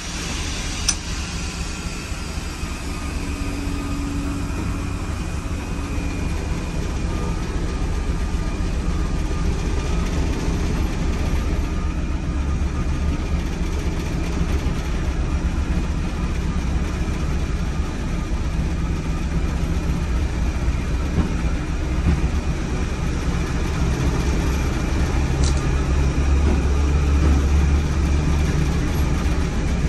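Class 73 electro-diesel locomotive's diesel engine running steadily under power, heard from inside the cab, with a low drone that builds gradually louder toward the end.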